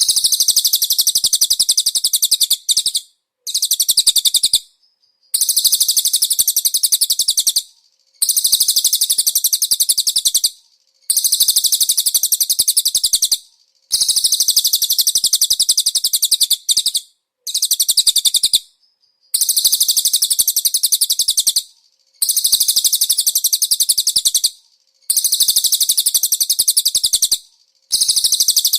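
A cililin songbird singing high, very fast trills in repeated phrases of about two to three seconds, separated by short pauses, about nine phrases in all.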